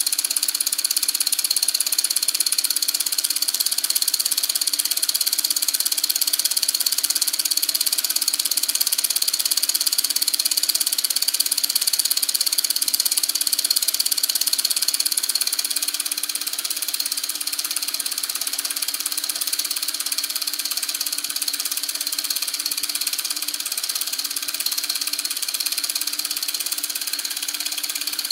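Homemade two-cylinder solenoid engine running at speed: its two 12-volt long-stroke solenoids, pushrods and roller rockers drive a cast iron crank with a fast, even mechanical clatter. The clatter is a little quieter from about halfway through.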